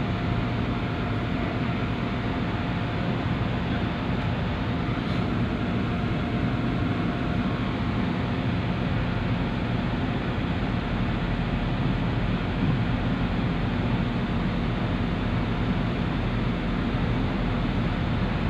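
Steady low drone of a small passenger ferry's engine under way, heard from inside its cabin, with an even hiss of water rushing along the hull.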